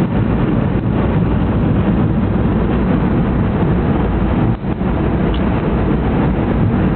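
Steady road and wind noise inside a vehicle's cabin at about 50 mph through a blizzard, mostly low-pitched, with a short dip about four and a half seconds in.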